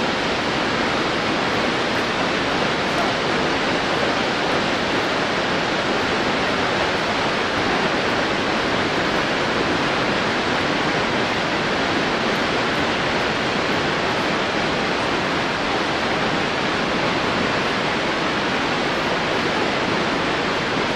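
Snoqualmie Falls rushing: the steady, unbroken roar of a large waterfall.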